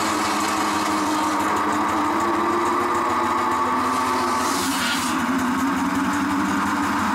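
A small engine running steadily at a constant speed, with a brief hiss about four and a half seconds in.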